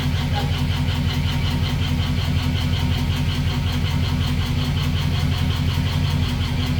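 5.3 LS V8 idling steadily with a fast, even ticking knock on top of the engine sound: the noise of failed lifters and a spun bearing, caused by cheap eBay lifters.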